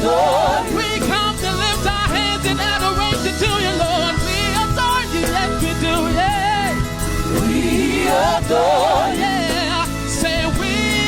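Gospel worship song performed live: a lead voice with heavy vibrato and a choir singing over a band with keyboard, bass and a steady drum beat.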